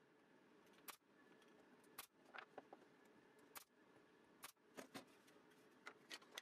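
Soft, sharp clicks and taps of small wooden pieces being handled and pressed together on a small plywood box, about a dozen in all, some in quick little clusters.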